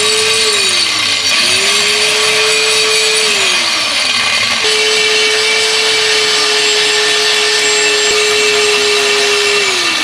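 Corded angle grinder grinding steel exhaust pipe: a loud, harsh grinding noise over the motor's whine. The whine sags twice as the wheel is pressed into the metal and recovers, then holds steady for the second half before dipping again near the end.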